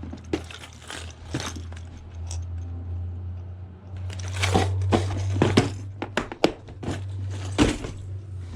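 Fishing lures and their packaging being handled: scattered rustling and sharp clicks, busier in the second half, over a steady low hum.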